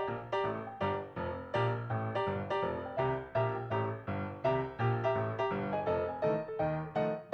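Background music: solo piano playing a steady run of notes, about three or four a second.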